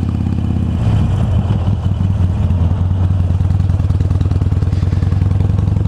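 Harley-Davidson Iron 883's air-cooled V-twin running at low revs as the bike rolls slowly in gear, near idle; the engine note changes about a second in, then holds steady in an even, rapid pulse.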